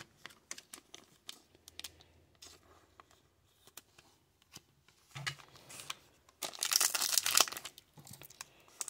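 Faint card handling, then the silvery wrapper of a trading-card pack crinkling and tearing open, loudest from about six and a half seconds in.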